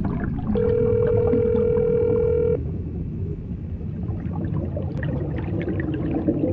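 Telephone ringback tone, the ringing a caller hears: one steady two-second ring, a pause of about four seconds, then the next ring starting at the end. A low rumble runs underneath.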